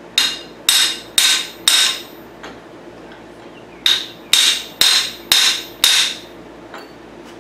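Steel hammer striking the flywheel of a pressed-together motorcycle crankshaft, with clear metallic ringing: four blows about half a second apart, a pause, then five more. The blows knock the flywheels into line to straighten the crankshaft.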